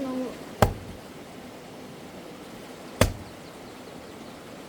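Firewood being split with an axe: two sharp strikes about two and a half seconds apart, and a third at the very end.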